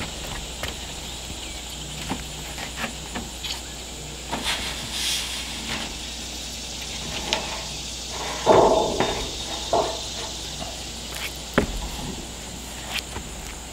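Scattered clicks and knocks of work on metal roofing flashing, with a louder short rasp about eight and a half seconds in.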